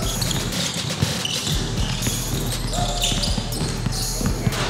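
Indoor basketball game on a hardwood court: a basketball thudding on the floor in short knocks, with brief high squeaks of sneakers on the wood.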